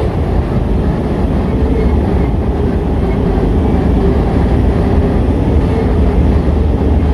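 Work train of rail-laden flat wagons rolling slowly out of a tunnel, pushed from behind by a DF4B diesel-electric locomotive still inside it: a steady low rumble of wheels on rails and the locomotive's diesel engine.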